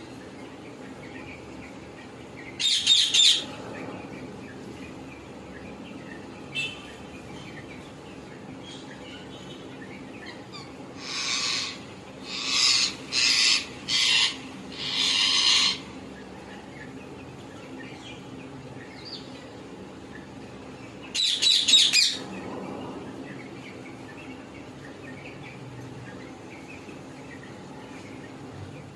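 Green ringneck (rose-ringed) parakeets giving harsh screeching calls in short bursts: one burst a few seconds in, a run of about five calls in the middle, and another burst later on.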